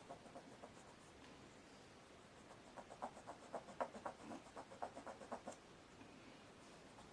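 Faint rubbing of a spit-moistened cloth on a radio knob, wiping the surplus ink off its face so that it stays only in the recessed lettering: a run of short, quick strokes, about five a second, for about three seconds midway.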